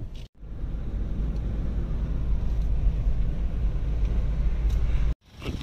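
Inside a moving car's cabin: a steady low rumble of engine and road noise. It cuts out briefly about a third of a second in and again near the end.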